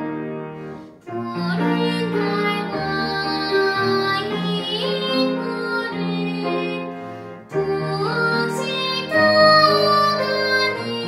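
A young girl's solo voice singing in classical style, with grand piano accompaniment. The singing breaks off briefly twice between phrases, about a second in and again about seven seconds in.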